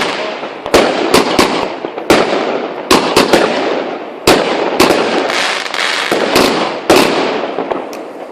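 Fireworks exploding: loud sharp bangs every half second to a second, each trailing off into dense crackling.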